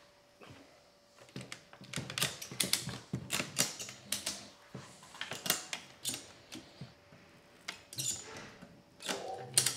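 Ratchet strap being cranked tight, its ratchet clicking in irregular runs of sharp clicks as it pulls a rising load of over 200 pounds onto a hanging crane scale.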